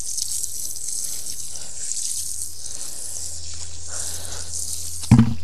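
Water running in a steady hiss, with a low steady hum joining about two seconds in. A short voice sound breaks in near the end.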